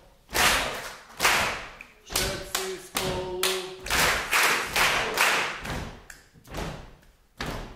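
A group clapping and thumping out a shared rhythm, about two strokes a second, each stroke ringing briefly in the hall, as a body-percussion warm-up. A short held vocal call joins in about three seconds in.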